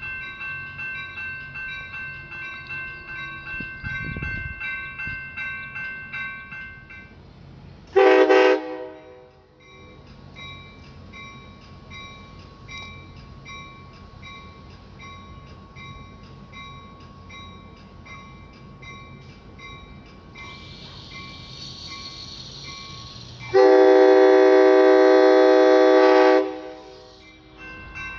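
Nathan K5LA air horn on a California Amtrak cab car sounding a short blast about eight seconds in, then a long blast of about three seconds near the end. Grade-crossing bells ring steadily throughout.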